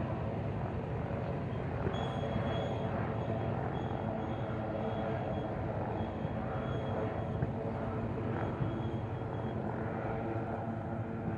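Aircraft engine running steadily at a constant pitch, with a faint high whine that comes and goes.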